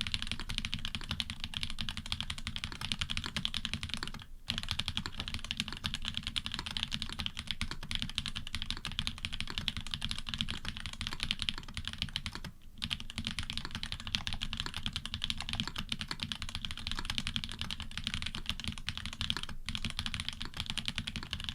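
Fast, continuous typing on a custom Orion v2.5 mechanical keyboard with frankenswitches (Cherry bottom housings with Cream tops and stems), an FR4 plate and plate and switch foam. Dense keystroke clicks with a low thock underneath, broken by short pauses about four, twelve and nineteen seconds in.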